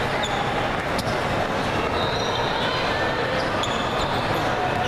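Basketball game play on a hardwood court in a large, busy hall: a steady din of the hall, a ball bounce about a second in, and short high squeaks of sneakers on the court.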